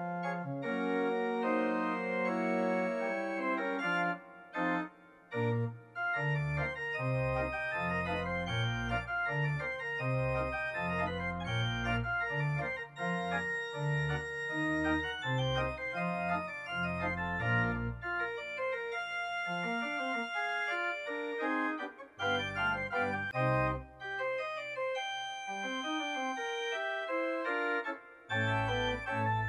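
Organ music: sustained chords over a moving bass line, with a few short breaks between phrases.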